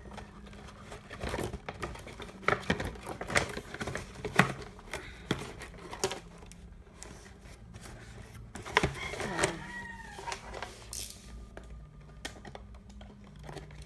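Irregular clicks, taps and rustling as a boxed toy gumball machine's plastic packaging is handled and pulled open.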